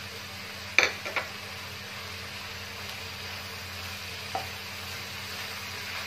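Julienned carrot and jicama sizzling in a frying pan while a wooden spatula stirs sugar and seasoning through them, with a few sharp clacks of the spatula against the pan about a second in and a lighter one midway.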